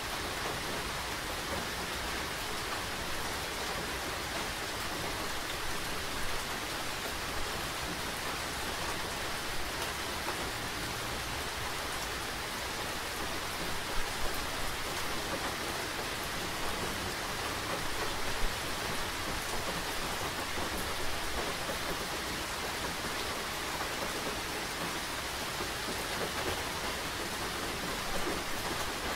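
Steady rain falling, an even hiss, with a few louder drops striking a surface now and then, most clearly about halfway through.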